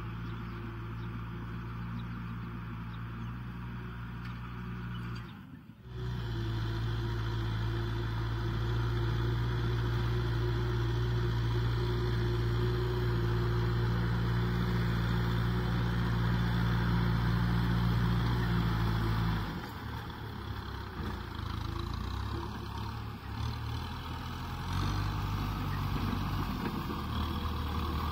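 Kubota M6040SU tractor's diesel engine running steadily under load as it pulls a disc plough through wet, muddy ground. The sound drops out briefly about five seconds in and comes back louder and steady, then turns rougher and less even about twenty seconds in.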